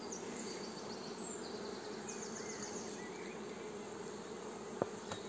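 Steady buzzing hum of a colony of Buckfast honeybees over an open twelve-frame hive, with two light clicks near the end.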